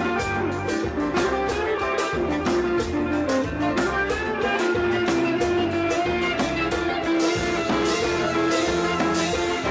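Live kompa band recording: drum kit, bass guitar and electric guitar playing a steady, evenly pulsed groove.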